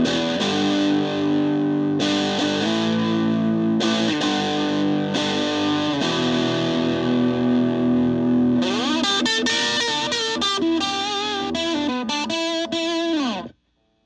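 Telecaster electric guitar played loud through a repaired 15-watt solid-state Fender Frontman PR-241 amp, now working again after having had no output. Held chords ring and change every couple of seconds. From about 8 s in a lead line with string bends takes over, then cuts off sharply near the end.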